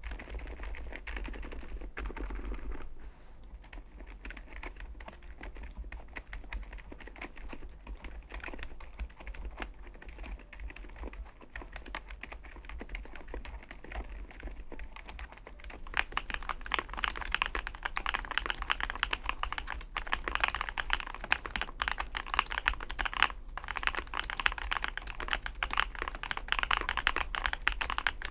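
Typing on a Chosfox x masro Fox65 gasket-mounted 65% mechanical keyboard: a fast, steady run of keystroke clacks that gets louder and denser a little over halfway through.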